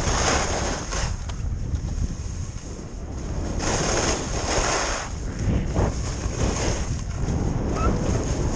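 Wind rushing over the microphone with the hiss of skis carving turns on packed snow, swelling every few seconds with each turn.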